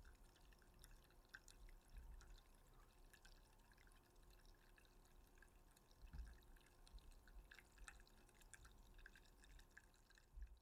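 Faint, fine crackling and dripping from a freshly opened can, many tiny scattered ticks, with a soft low bump about six seconds in and another near the end.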